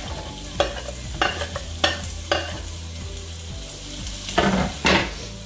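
Chicken pieces sizzling in hot oil in a wok, a steady frying hiss. A spatula scrapes and knocks against the wok about six times as the chicken is stirred, loudest near the end.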